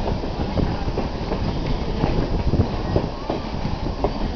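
Heritage railroad passenger coach rolling along the track: a steady rumble of the wheels on the rails, with repeated clicks and knocks as they pass over rail joints.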